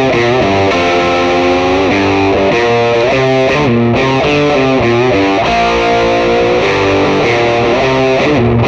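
Squier Contemporary Telecaster HH electric guitar played direct through a Fender Mustang GTX100's '65 Twin amp model with a '57 Bandmaster cab model, amp gain turned all the way up. It plays a distorted passage of chords and single notes, with some notes bent.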